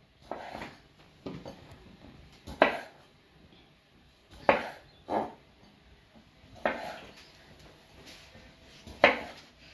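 Chef's knife cutting tomatoes in half and knocking on a wooden cutting board: about six or seven separate sharp knocks, one every second or two.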